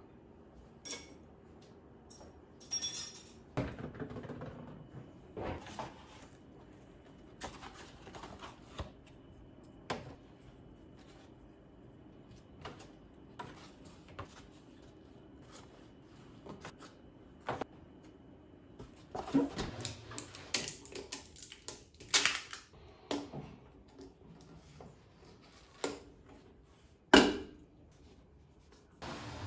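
Scattered clinks, knocks and rustles of kitchen things being handled: food containers moved about in a fridge and a hand pump worked on a large water jug, with a sharp knock near the end.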